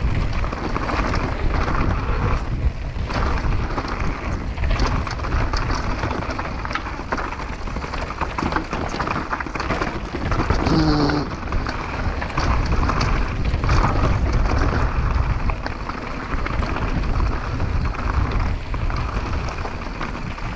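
Downhill mountain bike descending a bike-park trail, heard from a helmet camera: steady wind rush over the microphone, with tyres on gravel and dirt and a constant clatter of small rattles and knocks from the bike. A brief pitched sound comes about halfway through.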